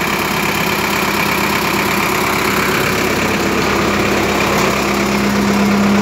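Sonalika 750 tractor's diesel engine running steadily at low speed while the tractor creeps along in a workshop-fitted extra-low gear, about five times slower than the factory low range.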